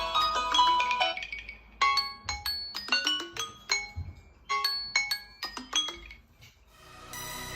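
A smartphone ringtone: a marimba-like melody of short struck notes, a quick run at first and then short phrases about once a second, fading out about six seconds in. A different, electronic dance-style tone starts just before the end.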